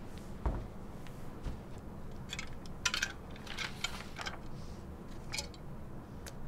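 Sheets of paper being handled and rustled in a few short bursts, mostly in the middle of the clip, over a low steady room hum. A soft thump comes about half a second in.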